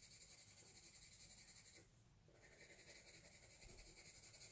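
Faint scratching of the side of a pencil lead shaded back and forth across drawing paper in quick, even strokes, pausing briefly about two seconds in.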